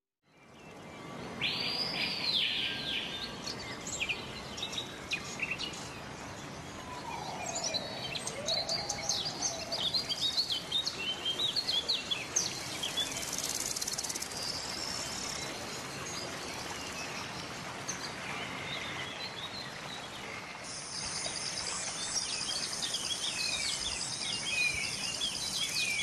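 Outdoor ambience of several birds chirping and whistling, with a lower sliding call about eight seconds in. A steady, high insect buzz joins in for the last five seconds or so.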